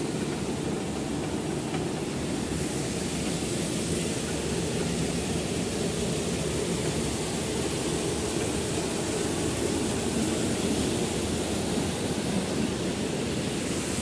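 Steady rushing of a fast mountain stream tumbling over rocks.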